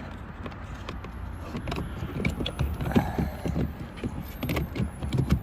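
Scattered plastic clicks, taps and knocks of a power window switch panel being handled and pressed back into a Volkswagen Routan's door trim, not yet snapping home.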